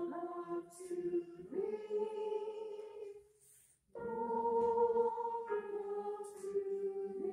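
Congregation singing a hymn in long held notes, two phrases with a short breath pause about three seconds in.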